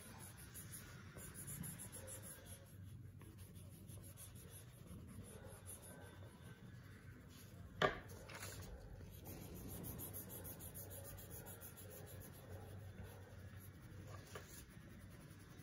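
Faint scratching and rubbing of colouring pens or crayons on paper, with one sharp tap about eight seconds in.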